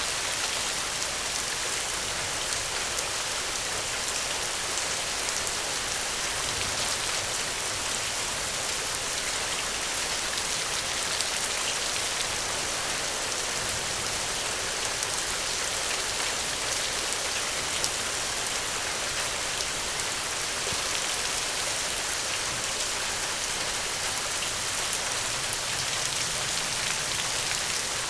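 Steady rain falling, a constant hiss of many small drops pattering on a surface.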